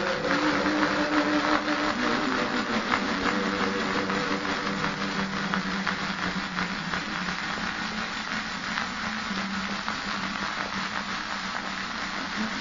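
Heavily degraded ambient music: a dense wash of hiss and crackle over a few held, droning low notes that shift about two seconds in.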